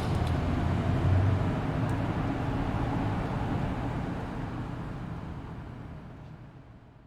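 Fire truck engine rumbling, then fading out steadily over the last few seconds.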